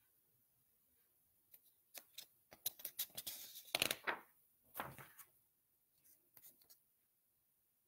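Sheets of paper rustling and crackling as one handwritten sign is swapped for the next: a run of crisp rustles starting about a second and a half in, loudest around the middle and tapering off near the end.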